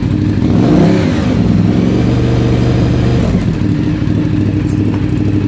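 2015 Ducati Diavel's L-twin engine running through a Shift Tech carbon-fibre stage 3 exhaust. It idles, is revved up about a second in and held higher for a couple of seconds, then drops back to a steady idle.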